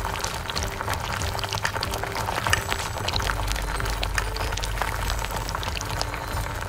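Thick tomato-and-onion egg gravy simmering in a small iron kadai, bubbling with many small irregular pops, while a small metal spoon stirs it and spoons it over the eggs.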